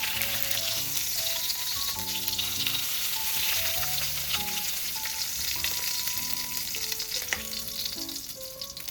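Food sizzling as it fries in a hot pan, a steady crackling hiss that dies down near the end.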